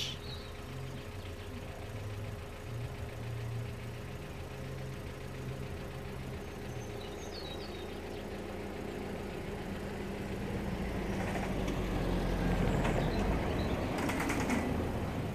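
Diesel engine of a small service locomotive running steadily, heard from afar as a low hum that grows louder about ten seconds in. A short rush of noise comes near the end.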